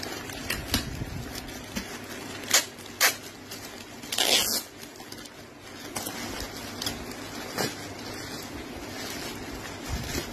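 Plastic courier mailer bag crinkling under handling, with several sharp crackles and a longer rasp of plastic about four seconds in.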